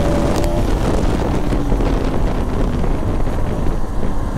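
Wind buffeting the microphone of a moving motorcycle rider, over a steady low rumble of road and engine.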